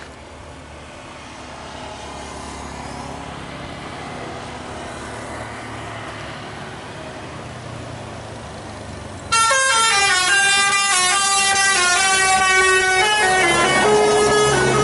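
An intercity bus approaching, its engine and tyre noise slowly growing louder. About nine seconds in, a loud multi-tone "telolet" bus horn starts suddenly and plays a rapid run of notes that step up and down; near the end a lower held note joins in.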